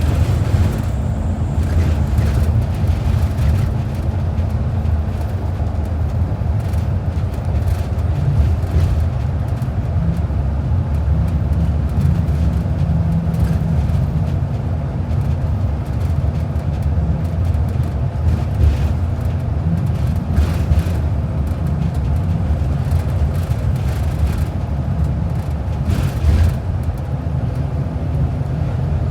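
Steady low drone of a transit bus under way, engine and road noise heard from inside the cabin, with a few faint knocks.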